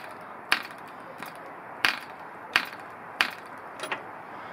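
Six sharp clicks, about one every two-thirds of a second, as a small model diesel engine's propeller is flicked over by hand without the engine firing.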